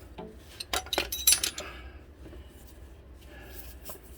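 Steel sockets clinking against one another as a 13 mm socket is picked out of a socket set: a quick cluster of sharp metallic clinks about a second in, then a few lighter scattered clicks.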